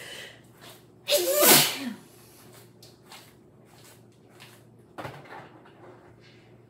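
A woman sneezes once, loudly, about a second in, the voiced end of the sneeze dropping sharply in pitch; she puts her sneezing down to an allergy to a new laundry detergent. A shorter, fainter sharp sound follows about five seconds in.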